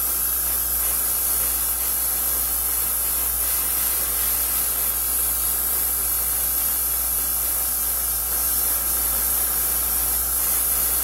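Airbrush spraying paint onto a small model part: a steady, unbroken hiss of air and paint.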